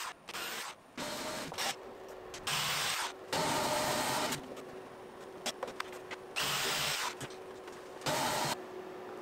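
Power drill in a drill guide boring holes into a wooden workbench top. It runs in about six short bursts, each half a second to a second long.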